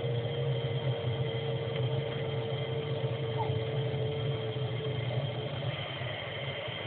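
Steady running of jet-aircraft flight-line machinery, a ground support cart and jet engines: a low hum with a constant high whine over it. A mid-pitched steady tone stops about five seconds in.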